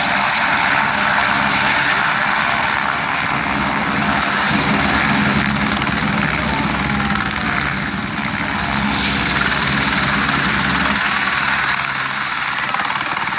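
Helicopter running close by: steady turbine whine and rotor noise with a low, even rotor beat that thins out near the end.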